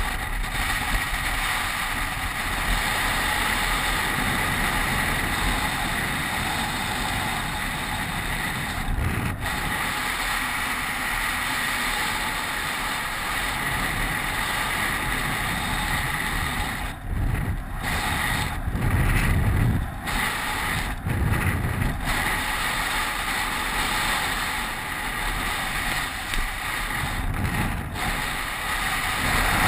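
Steady rush of wind over a helmet-mounted camera, with the hum of a downhill mountain bike's tyres rolling fast on asphalt. A little past halfway, several gusts swell the low rumble.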